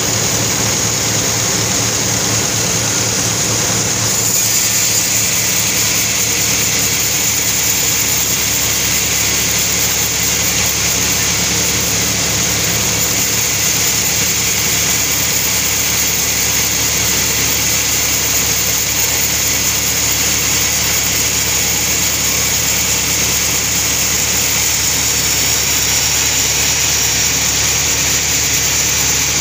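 Sawmill saw and its engine running steadily, a loud continuous machine drone with a high whine on top. About four seconds in the sound turns brighter and a little louder.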